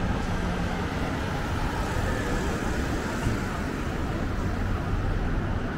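Steady road traffic noise, a continuous low rumble of passing cars with no single event standing out.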